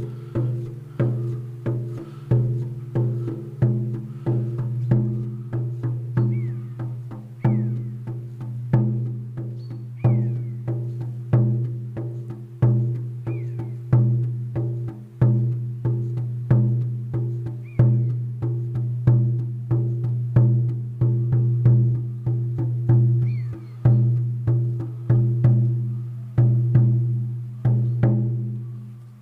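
16-inch deerskin shamanic frame drum struck with a soft beater in a steady beat of about three strokes every two seconds, each stroke ringing on in a deep sustained hum. A common buzzard's faint mewing calls sound above it several times.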